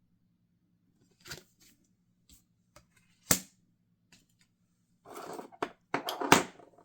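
Oracle cards being handled on a table: a few separate sharp taps and clicks, then papery rustling with snapping card sounds near the end.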